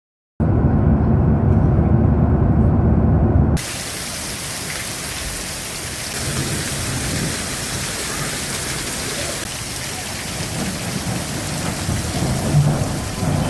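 A loud, low rumble of thunder for about three seconds, cut off abruptly, then a steady hiss of heavy rain.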